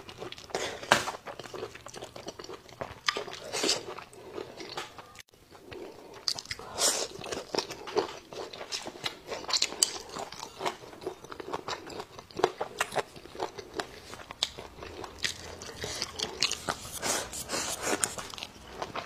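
Close-miked eating: continual biting, crunching and wet chewing of spicy braised food (duck feet, pork and green peppers), full of short sharp clicks, with a brief break about five seconds in.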